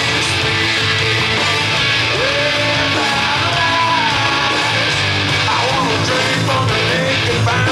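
Hard rock music with electric guitars, playing steadily and loudly.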